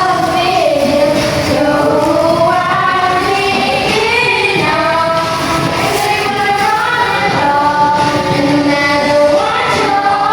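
A song playing: a high voice singing held, gliding notes over music.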